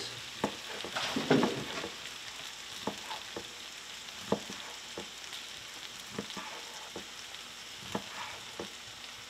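A chef's knife chopping cooked lobster tail meat on a wooden cutting board: a dozen or so sharp taps of the blade against the board, irregularly spaced, over a steady faint hiss.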